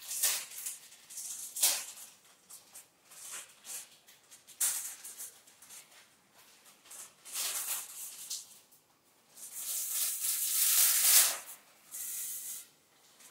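Dry pasta rattling and rustling in its plastic bag in several short bursts as the package is handled and shaken, then a longer, louder rattle near the end as the pasta pours out of the bag into the pot.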